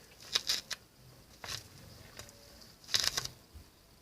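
Short crinkling rustles of plastic stretch film on handmade yarn squishies being handled, in a few brief clusters, the loudest about three seconds in.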